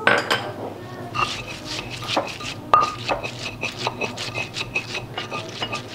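Stone pestle knocking and grinding in a stone mortar (ulekan and cobek), crushing bird's-eye chillies, garlic and kencur into sambal: a series of irregular knocks with scraping between them.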